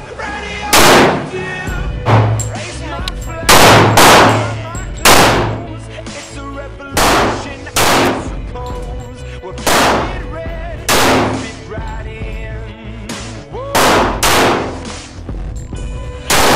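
About a dozen pistol shots, fired one at a time at uneven spacing, some in quick pairs, over a background music track.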